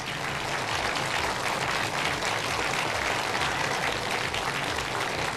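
Studio applause: many people clapping steadily.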